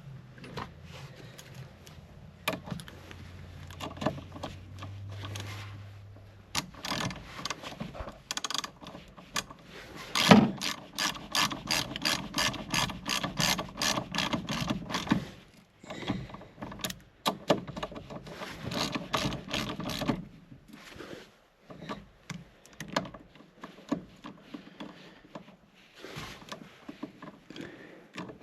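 Ratchet wrench clicking in quick, even runs as fasteners are turned while reassembling a winch switch box, with a low steady hum over the first few seconds.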